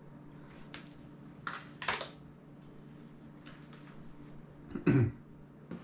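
Handling noise from a smartphone being moved and put down: a few light clicks and taps, then a dull thump about five seconds in as it is set down, over a steady low hum.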